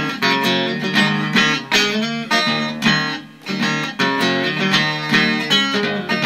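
Blues guitar played solo: a repeating rhythmic riff of plucked and strummed notes, with about two strokes a second.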